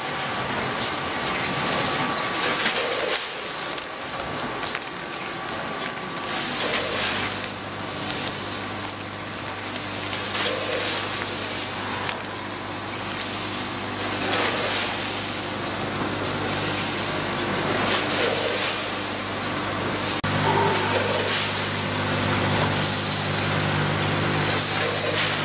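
Ohlson vertical form-fill-seal bagging machine running over a steady low hum. A short hiss and clunk repeats about every one and a half to two seconds as it cycles through forming, filling and sealing bags.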